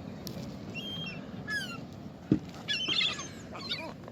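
Several birds squawking and chirping in short, quick calls as they crowd in for scattered food. There is one soft knock about two seconds in.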